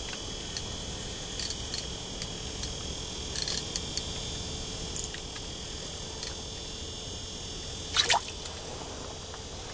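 Rain drips tapping on an ice-fishing shelter, a scatter of light, irregular ticks over a faint steady hiss, with one louder, longer tick about eight seconds in.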